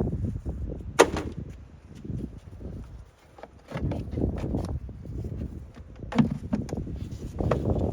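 Handling of the plastic engine air filter housing while refitting its cover: a sharp click about a second in, then several lighter clicks and knocks near the end, over a low rumble of wind on the microphone.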